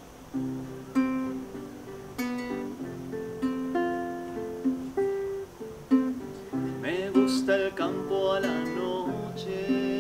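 Classical guitar played solo, fingerpicked notes and strummed chords in an instrumental passage of a song.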